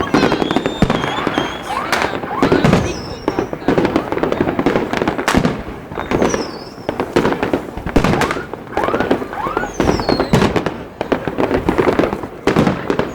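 New Year fireworks going off in a rapid string of bangs and crackles, with whistles that rise and fall in pitch between the bursts.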